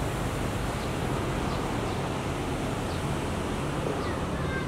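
Steady rushing background noise, strongest in the low range, with a few faint short high sounds scattered through it.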